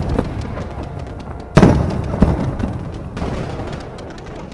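Fireworks shells bursting overhead: a loud boom about a second and a half in, then a smaller bang just after, each dying away slowly.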